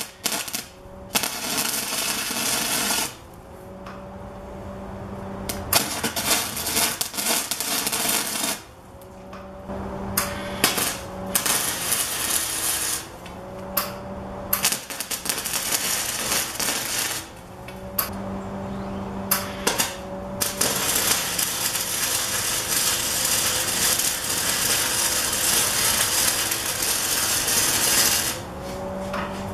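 MIG welding arc crackling on steel square tubing. It comes in a series of welds several seconds long with short pauses between them, the longest about seven seconds near the end.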